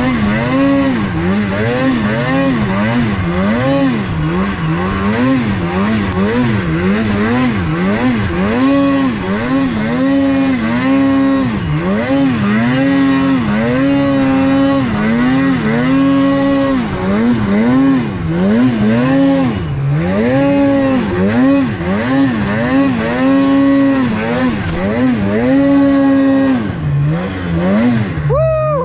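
Polaris mountain snowmobile's two-stroke engine, throttle worked on and off over and over, its revs rising and falling about once a second with a few held stretches. It revs sharply once near the end.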